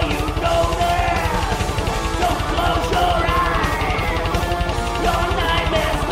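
Heavy metal song played by a full band, with fast, steady drumming under melodic lines that bend up and down in pitch.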